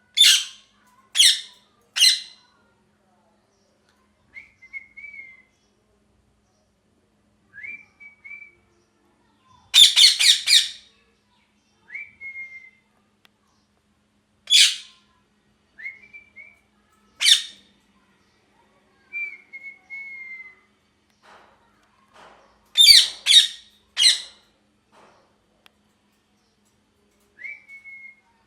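Ringneck parrot screeching: loud, harsh calls, three in a row at the start, a rapid cluster about ten seconds in and again near the end, with softer short whistled notes that slide slightly down in between.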